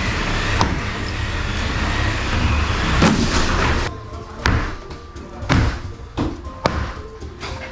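Background music over demolition noise: a dense rushing clatter for the first few seconds, then four heavy knocks roughly a second apart.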